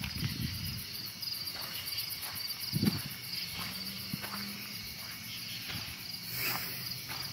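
Crickets chirping in a steady, pulsing night chorus, with soft footsteps on a dirt path at a walking pace and one duller thump about three seconds in.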